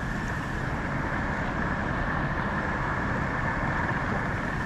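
Water rushing steadily down a small creek channel, an even noise with no breaks.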